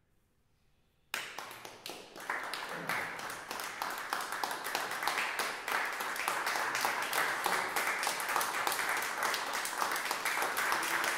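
An audience applauding: after about a second of near silence, clapping breaks out suddenly, swells over the next few seconds and settles into steady applause.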